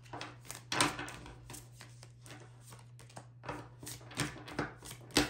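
Tarot cards being handled and shuffled: an irregular run of soft clicks and taps, with sharper ones about a second in and near the end, over a steady low hum.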